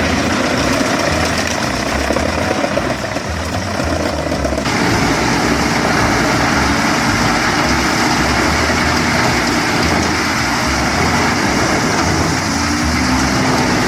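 Mobile wood waste grinder running, its heavy engine and grinding making a steady, loud machine noise. The sound changes abruptly about four and a half seconds in.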